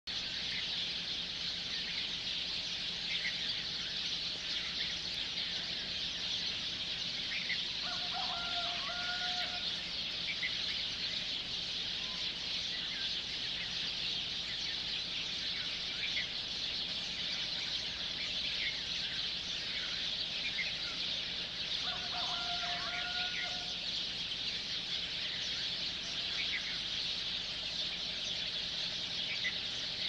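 Morning chorus of many birds chirping continuously in trees. A longer, lower held call from another bird, likely a fowl, sounds twice, about eight seconds in and again past twenty seconds.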